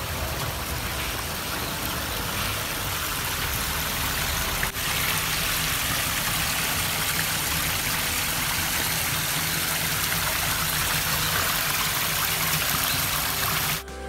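Steady rush of flowing water, with a short break about five seconds in.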